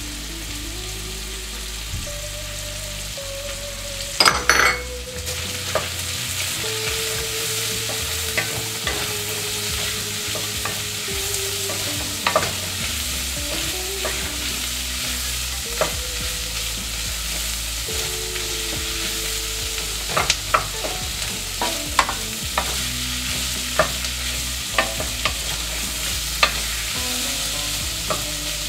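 Onions, garlic and bacon pieces sizzling in bacon grease in a stainless steel pot, stirred with a wooden spatula that scrapes and knocks against the pot. There is a cluster of knocks about four seconds in and a run of them in the last third.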